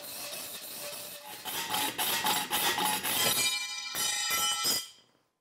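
Hacksaw strokes rasping through a thin steel card scraper clamped in a machinist vise. In the last couple of seconds the thin steel rings with each stroke, because the scraper vibrates in the vise as the cut nears its end. The sound cuts off suddenly near the end.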